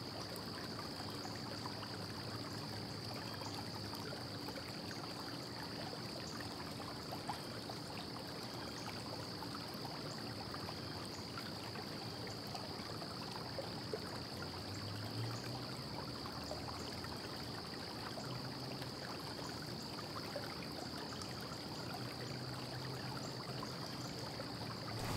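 Steady background hiss with a faint, constant high-pitched whine; no distinct handling or tool sounds.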